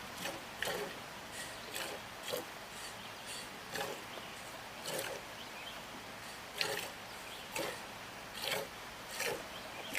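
Goat being milked by hand: streams of milk squirting into a pail in short spurts, roughly one a second.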